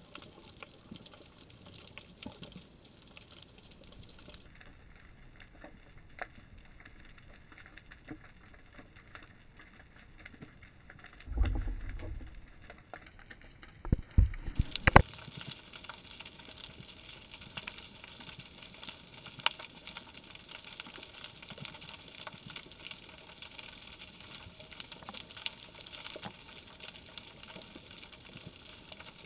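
Underwater sound through a GoPro's waterproof housing on a freedive: a steady crackle of small, irregular clicks, with a brief low rumble about twelve seconds in and a few sharp knocks a couple of seconds later.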